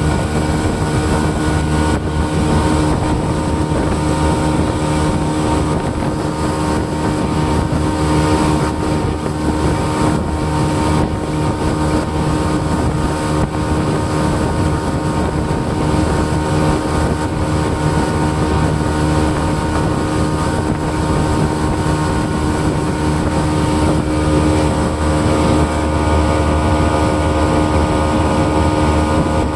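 SJX 2470 jet boat's engine running steadily at cruising speed, with wind buffeting the microphone and the rush of water from the wake.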